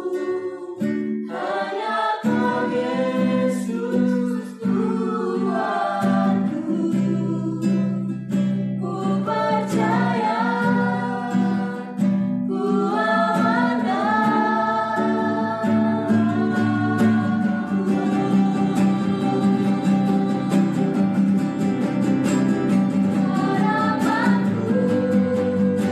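A small group of voices singing a worship song together, accompanied by two acoustic guitars, one of them a nylon-string classical guitar.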